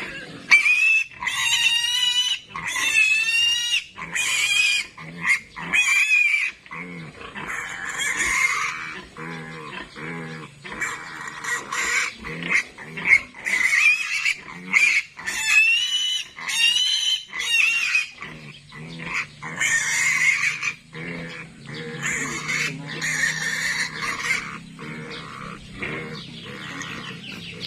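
Piglets squealing, a long series of shrill, loud screams one after another with short breaks, typical of piglets being caught and held for castration.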